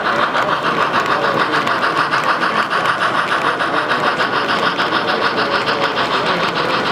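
Model freight train running past on its layout track, making a fast, even mechanical rattle from its wheels and running gear.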